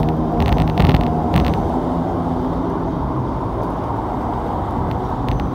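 Hong Kong double-decker tram running along its track, heard from on board: a steady motor hum with a few sharp knocks and clatters of the wheels on the rails, most of them in the first second and a half and a couple near the end.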